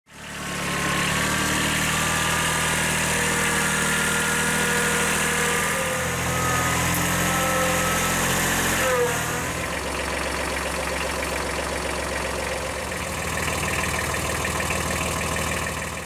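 Compact tractor engine running steadily, with a whine that slides in pitch and then settles lower about nine seconds in.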